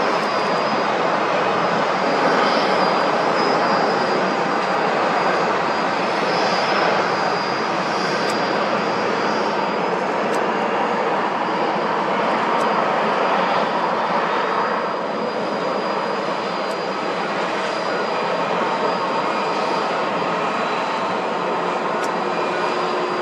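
Airbus A350-900's twin Rolls-Royce Trent XWB turbofans at takeoff thrust: a steady jet roar through the takeoff roll and climb-out, easing a little about halfway through.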